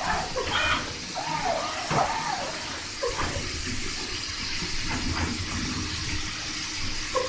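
Steady hiss and low hum of a digital cutting table's vacuum hold-down blower running, with light rustling as a cut vinyl sticker sheet is handled.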